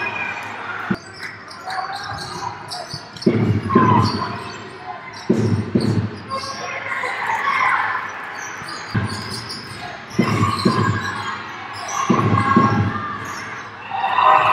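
A basketball bouncing on a wooden sports-hall court during play, its thuds coming in bouts every second or two, with players' and spectators' voices in the hall.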